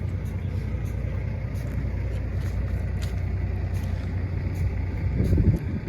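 A vehicle engine idling with a steady low rumble. Near the end there is a brief, louder low rumble, then the sound drops off.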